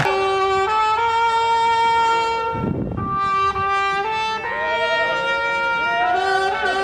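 A trumpet playing long held notes that step up and down in pitch, with a short break about halfway through. Voices with wavering pitch join in during the second half.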